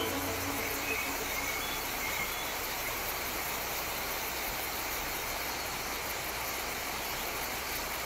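Outdoor marsh ambience: a steady hiss with a high, pulsing insect chorus and a few faint bird chirps, as the last of the background music fades out in the first second.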